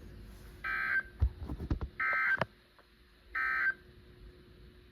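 Emergency Alert System end-of-message data tones: three short, identical warbling bursts of digital data sent about a second apart, marking the close of the warning broadcast. A few soft knocks sound between the first and second bursts.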